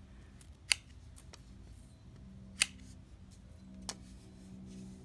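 Hand pruners snipping small side branches off a willow rod flush with the bark: two sharp snips and a fainter third.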